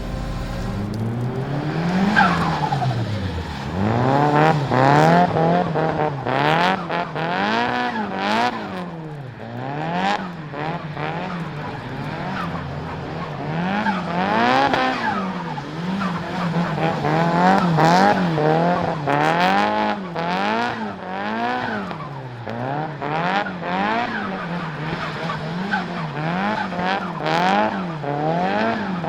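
Nissan Silvia S15's turbocharged SR20DET four-cylinder engine revving up and falling back over and over while the car is drifted, with sharp turbo flutter each time the throttle lifts. Tyres skid on the wet tarmac between the revs.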